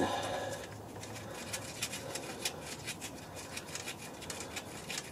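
Faint scattered clicks and scraping of metal on metal as the middle connecting-rod big-end cap of a Ford 1.0 EcoBoost three-cylinder engine is worked off by hand, with a small knock right at the start.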